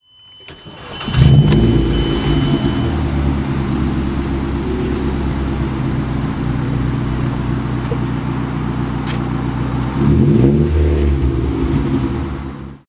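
A car engine starting up and catching about a second in, then idling steadily. About ten seconds in it is revved once, rising and falling back, before the sound fades out.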